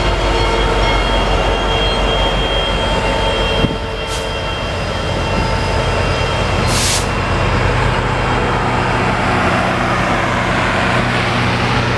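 Union Pacific train rolling slowly past close by: a steady rumble of steel wheels on rail with a few thin steady tones in the first few seconds. A sharp click comes about four seconds in, and a short hiss of air a few seconds later. A trailing diesel locomotive's engine drones low through the second half.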